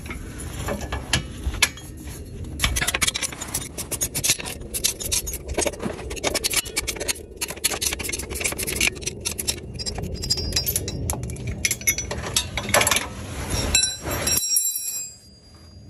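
Hand tools clicking and clinking on metal as the two bolts holding a Jeep Wrangler JL's bump stop are worked loose, a dense run of irregular sharp clicks. A ringing metal clink about fourteen seconds in.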